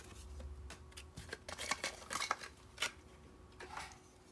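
A Hot Wheels blister pack being opened by hand: irregular crackles and clicks of stiff plastic and cardboard.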